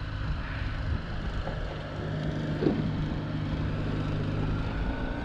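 Boat motor running steadily: a low hum with a faint higher whine that rises slightly near the end.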